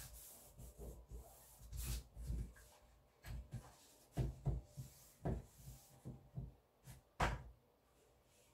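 Sheets of cotton-rag mat board being handled on a work table: rubbing and sliding with brief swishes, and a series of soft knocks as the boards are lifted and set down, the loudest knock about seven seconds in.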